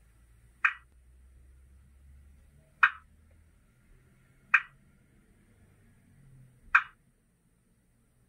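Four sharp clicks about two seconds apart from the small speaker of a Dapol N gauge Class 33 model locomotive's ESU DCC sound decoder, over a faint low hum.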